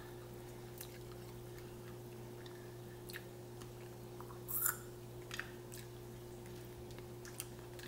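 Faint clicks and one louder crackle from a crawfish being peeled by hand and eaten, over a steady low hum.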